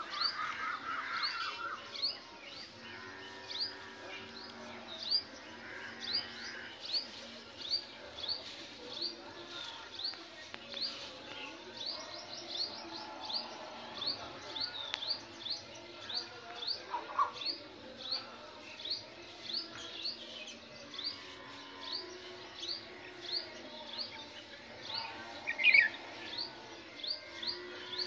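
A small bird chirping a short, high note over and over, about twice a second, with other birds calling softly behind it. A louder, sharper call cuts in near the end.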